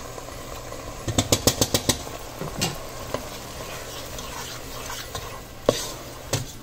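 Spices scraped off a cutting board into a pot of tomato purée and stirred in with a wooden spoon: a quick run of clicks and knocks about a second in, then scattered knocks of the utensils against the pot, over the light sizzle of the simmering sauce cooking off its moisture.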